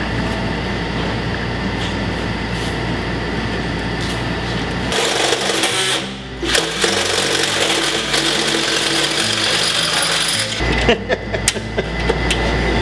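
A cordless drill runs as it bores into an aluminium panel, stopping briefly once. Near the end, a hand pop-rivet tool sets rivets with a few sharp snaps.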